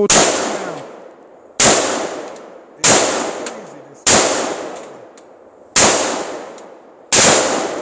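AR-15 rifle fired six times in slow succession, single shots a little over a second apart, each with a long echoing tail.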